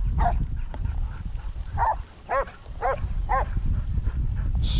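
Cur dog barking while working longhorn cattle: one bark, then after a pause a quick run of four barks about half a second apart, over a steady low rumble.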